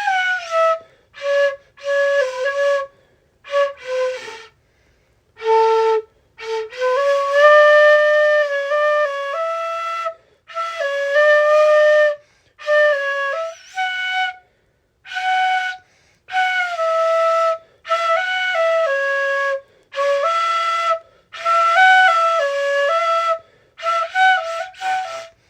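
Solo flute playing a slow melody in the middle-high range, in short phrases broken by brief pauses between them.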